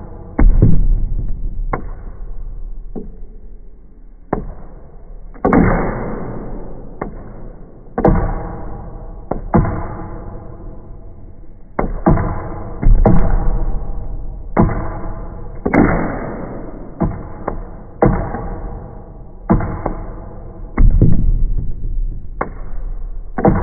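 Guitar chords strummed one at a time with a pick, each left to ring and fade before the next, in an irregular succession of about fourteen strums.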